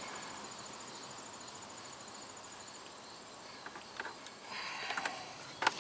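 Small clicks and rustling of hands pushing a spade electrical connector onto a car starter, ending in a sharp click near the end. A faint, high, evenly pulsed trill runs behind it for the first half.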